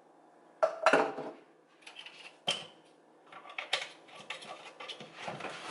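Kitchen handling sounds: a few sharp knocks as containers are set down on the counter, then a run of light clicks and rattles.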